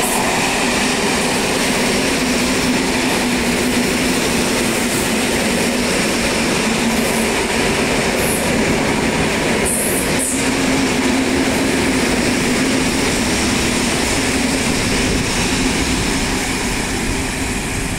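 An EN71 electric multiple unit running past close by: a steady rumble of wheels on rail with a low hum. A few short high-pitched squeaks come about seven to ten seconds in.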